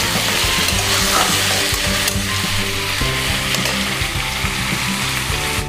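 Chicken pieces sizzling in hot oil in a metal kadai, stirred and scraped with a steel spatula at first, then left to fry, over a low music bed.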